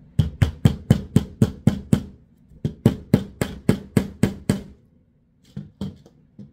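Hammer tapping small finishing nails into a wooden board through a paper template: two quick runs of about eight taps each, at about four taps a second, then a few lighter taps near the end.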